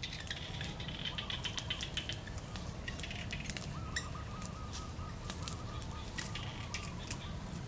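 Feathers being plucked by hand from a duck: a string of soft rustles and small tearing clicks. A bird calls in the background with a quick run of short repeated notes, mostly in the second half.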